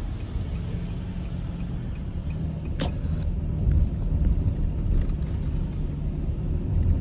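Steady low rumble of a car being driven, with a single sharp click about three seconds in. The sound cuts off abruptly at the end.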